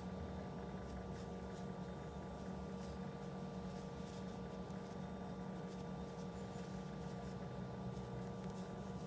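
A steady low hum with a couple of faint steady tones, and faint, light scratchy rustles of a metal crochet hook pulling acrylic yarn through stitches.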